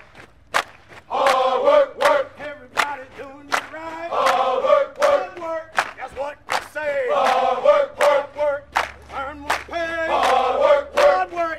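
Soundtrack song with a group of voices chanting and shouting together in loud phrases over a sharp, steady beat.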